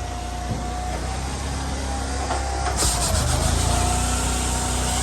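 Vehicle engine running steadily with a low rumble. A hiss joins about three seconds in.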